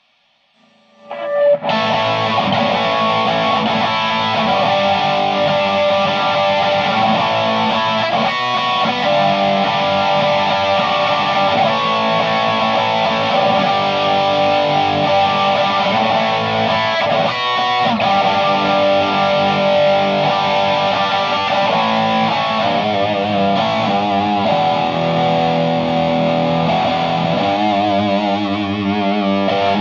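Electric guitar played through a Naughty Amps Li'l Bitch amp head on a crunch setting: distorted, overdriven chords and riffs that start about a second in and keep going, with wavering vibrato notes near the end.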